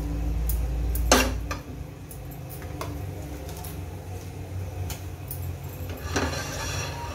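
Steel kitchenware being handled beside a pressure cooker: a sharp metal clank about a second in, a few light clinks, and a rattling scrape of a steel plate near the end.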